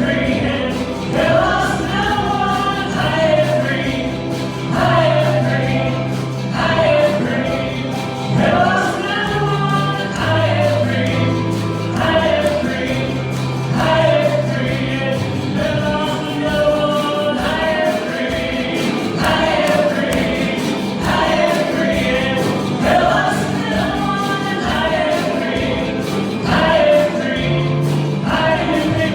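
A group of voices singing gospel music together in phrases of a few seconds, over instrumental accompaniment with long held low bass notes.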